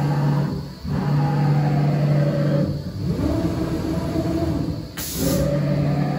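CNC router axis drive motors whining as the gantry and spindle move in three runs with short pauses, the pitch sweeping at each start and stop. About five seconds in comes a short hiss of compressed air from the pneumatic tool changer.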